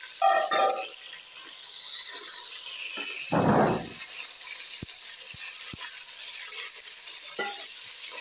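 Tomatoes and green chillies sizzling in hot ghee in an aluminium pot, stirred with a wooden spoon. There is a short ringing clatter just after the start, a louder scrape about three and a half seconds in, and a few sharp ticks and a knock later on.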